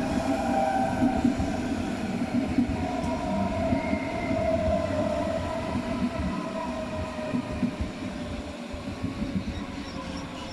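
Deutsche Bahn class 423 electric S-Bahn train running, with a light squeal from its axles: several whining tones over the running noise, slowly falling in pitch as the sound gradually eases off.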